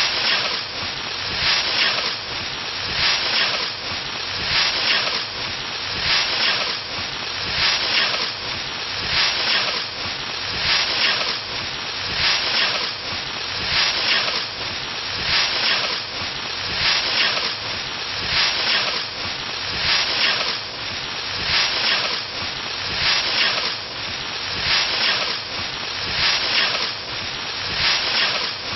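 Scythe swishing through standing wheat in steady repeated strokes, about one a second, each a brisk rasping swish.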